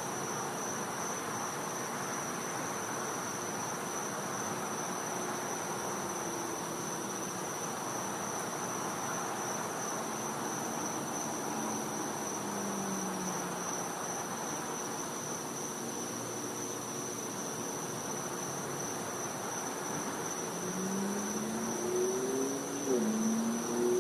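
Night insects chirring in one continuous high-pitched drone that never breaks, over a faint hiss of background noise. From about 20 seconds in, a low hum that wavers up and down in pitch rises underneath it.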